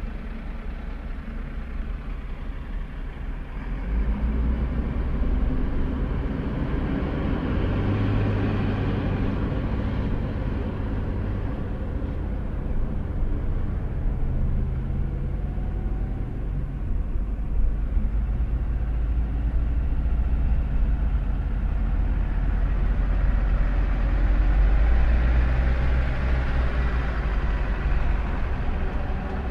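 Car engine and road noise heard from inside a moving vehicle's cabin, a steady low rumble that grows louder about four seconds in.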